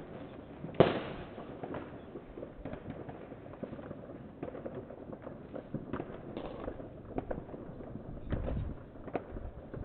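Fireworks and firecrackers going off: one loud bang about a second in, then scattered smaller cracks and pops, and a low rumbling boom near the end.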